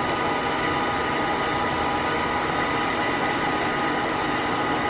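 Charcoal furnace burning hard at about 700 °C, hot enough to melt aluminium: a steady rushing noise with a thin, steady whine over it.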